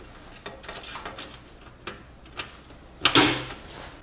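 Light clicks and rattles of cables and a fan connector being handled inside a steel PC case, followed by one louder clunk with a rustle about three seconds in.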